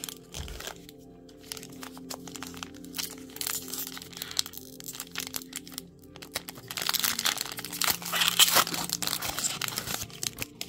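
Foil booster-pack wrapper crinkling and tearing as it is opened, a run of sharp crackles that grows dense and loudest in the second half. Background music plays underneath.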